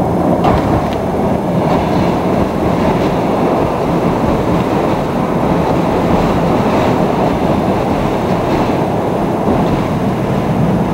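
Train passing directly overhead on a riveted steel railway bridge with wooden sleepers, heard from underneath: a loud, steady rumble with occasional faint knocks.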